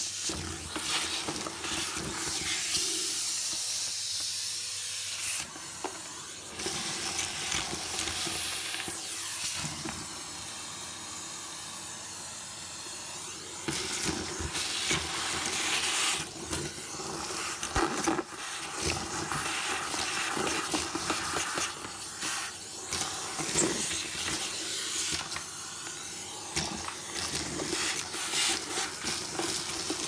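Vacuum cleaner hose nozzle sucking dirt, dust and grit out of the bottom of a vacuum tub: a steady hiss of suction with scattered rattling clicks as bits of debris are pulled into the nozzle.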